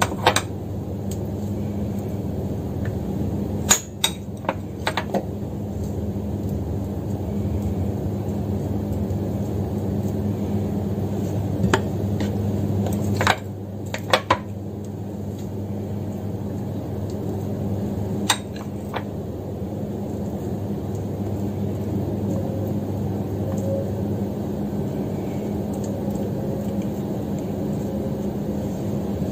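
A metal spoon clinks now and then against a ceramic bowl, in a few short clusters, as minced filling is scooped out and pressed into hollowed melon rings. A steady low hum runs underneath.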